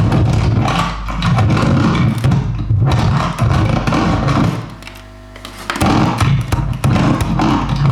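Noise Box 21 electronic noise box putting out a loud, pulsing, distorted low drone with noisy crackle above it. It drops away for about a second around five seconds in, then comes back.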